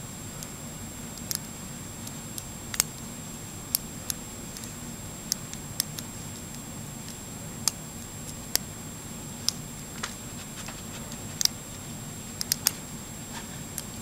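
About fifteen small, sharp clicks at uneven intervals as a hook pick lifts the serrated pin stacks of an American Lock Series 80 padlock held under light tension, over a faint steady hum.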